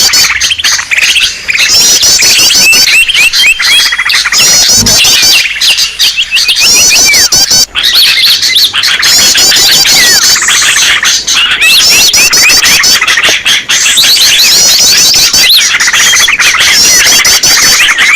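Bird-lure recording of many small songbirds calling at once: a loud, dense, continuous chorus of chirps, twitters and squeaky sweeps. A high, fast trilled phrase recurs every couple of seconds.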